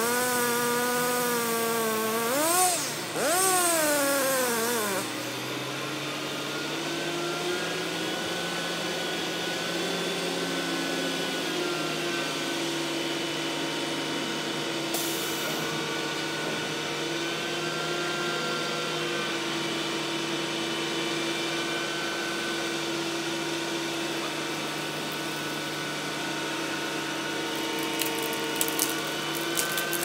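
Chainsaw engine revving up and down several times, then running at a steadier, lower pitch, with a few sharp clicks near the end.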